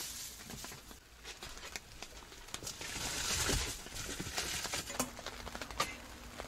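Camping gear being handled and shifted: rustling with scattered light taps and clicks, and a louder rustle about three seconds in.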